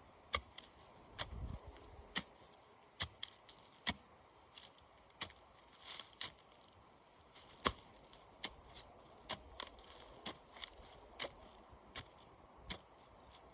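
A metal hand tool striking and chopping into soil again and again, digging a hole to plant a bush: sharp, irregular strikes about one or two a second.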